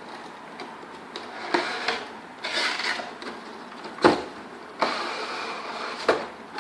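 Packaging being handled during an unboxing: rustling and scraping of cardboard and plastic with a few sharp knocks, the loudest about four seconds in.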